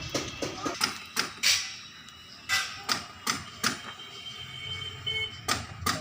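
Irregular sharp knocks and taps in a truck body workshop, about a dozen of them, several leaving a brief metallic ring.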